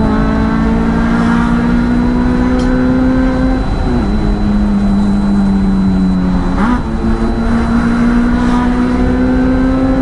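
Honda Civic FD2R's 2.0-litre four-cylinder engine heard from inside the cabin, pulling steadily with its pitch slowly climbing over road and tyre noise. The pitch drops suddenly about four seconds in, then jumps back up with a short burst of noise near seven seconds, as at gear changes.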